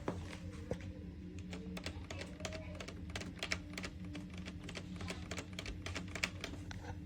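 Rapid, irregular light clicks and taps over a steady low electrical hum.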